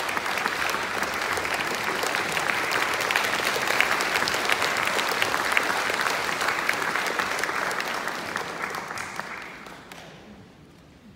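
Audience applauding: dense clapping that thins out and dies away near the end.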